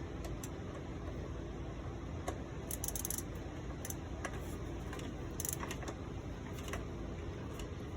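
Scattered light metallic clicks and clinks of a hand tool working a T30 Torx bolt out of a motorcycle chain cover, a few sharper ones about three and five and a half seconds in, over a steady low hum.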